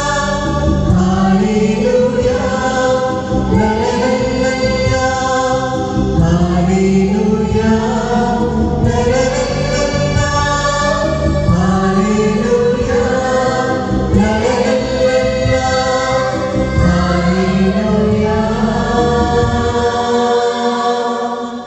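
Mixed choir of men's and women's voices singing a Christmas carol into microphones. The song closes on a held final note that fades away near the end.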